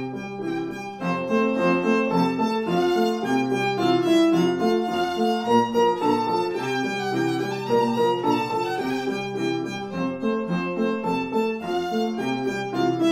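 Background music led by a violin, playing a continuous melody with several notes sounding together.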